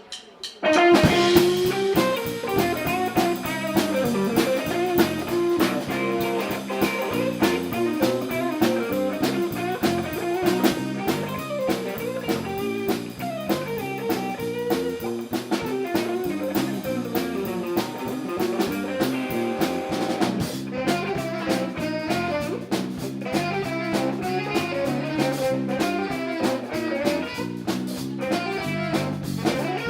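A live band starts a jazz-blues instrumental about a second in, with guitar and drum kit playing at a steady level.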